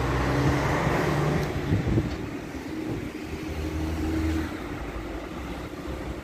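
Road traffic: motor vehicle engines idling and moving, a steady low hum, a little louder in the first couple of seconds.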